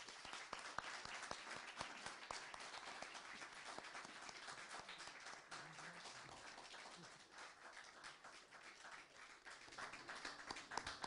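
Audience applauding: dense clapping that starts at once, thins somewhat past the middle, and picks up again with sharper single claps near the end.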